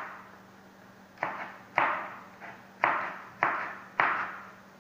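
Kitchen knife chopping through vegetables and knocking on a plastic cutting board. There are about five sharp knocks at an uneven pace after a quiet first second. A faint steady hum sits underneath.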